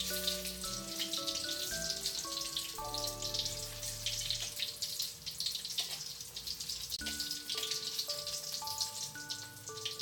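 Food frying in hot oil in a pan: a steady, dense sizzle full of fine crackles.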